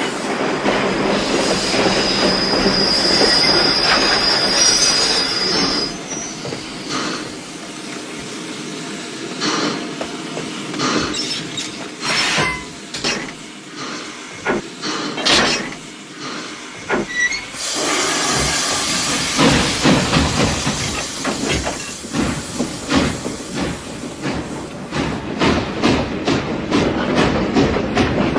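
Railway wagons on the move: a high wheel squeal in the first few seconds, scattered clanks through the middle, then dense rapid clicking of wheels over the rails.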